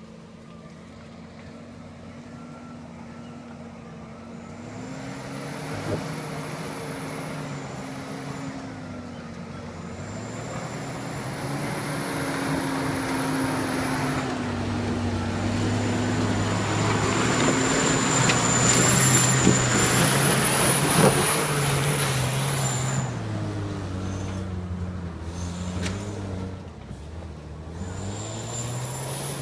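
Toyota Land Cruiser pickup engine pulling up a muddy dirt track. It grows louder as the truck approaches, is loudest as it passes close by about two-thirds of the way through, then fades as it drives off uphill. The engine note rises and falls several times as the throttle and gears change.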